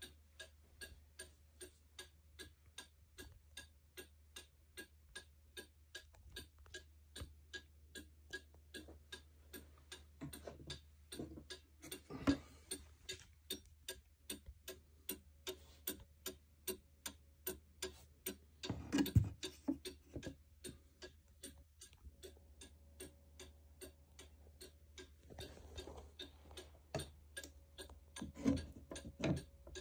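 Steady ticking of a circa-1870 fusee school dial wall clock's movement, about two to three ticks a second. A few louder knocks stand out around the middle and near the end.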